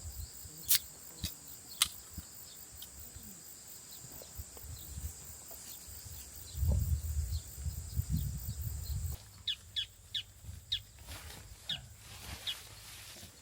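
Campfire crackling, with a few sharp pops and a run of small ticks near the end, over a low rumble in the middle and a steady high hiss that stops about nine seconds in.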